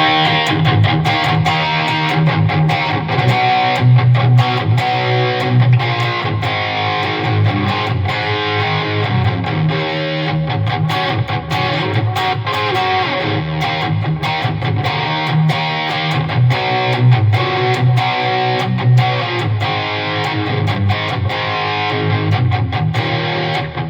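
Chibson Les Paul Custom copy electric guitar played through overdrive on its bridge pickup: loud, continuous distorted chords and riffs with frequent sharp pick attacks.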